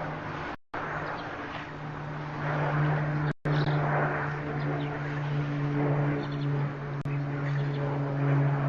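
A steady engine drone with a constant low pitch, over a background of outdoor noise. The sound cuts out completely twice, briefly, about half a second in and again near three and a half seconds.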